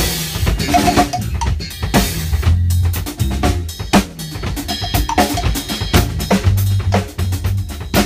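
Drum kit played in a busy groove: dense kick drum, snare and cymbal strikes, over an electric bass guitar holding long low notes.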